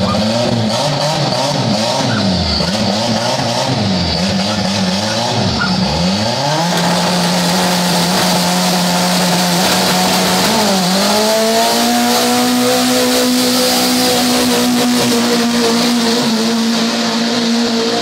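Volkswagen Gol doing a burnout. The engine is revved up and down several times, then held at high revs while the spinning tyres squeal and hiss against the asphalt. The revs dip briefly about eleven seconds in, then are held even higher.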